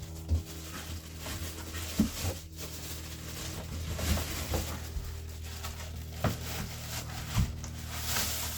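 Packaging being handled as items are lifted out of a box: rustling with about seven short knocks and thumps as things are set down, over a steady low hum.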